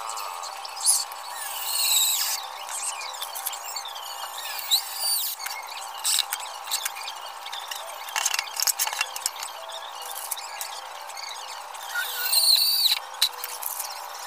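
Plywood panels being handled and fitted together on a workbench: irregular wooden knocks and taps with some scraping, and high squeaks now and then.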